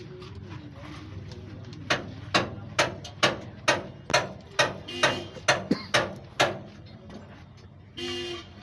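Hammering: about a dozen sharp blows at roughly two a second, stopping about six and a half seconds in.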